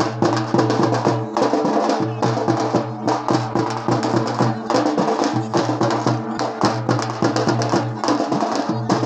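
Drums beaten hard in a fast, dense rhythm, with a steady droning tone underneath.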